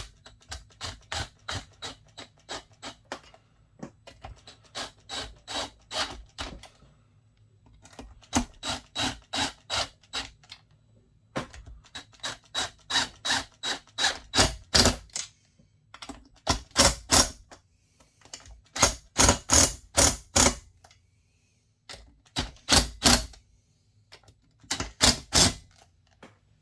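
Ratchet wrench clicking in quick, even strokes, about three to four a second, in several runs with short pauses between them, as bolts on a chainsaw engine are worked in.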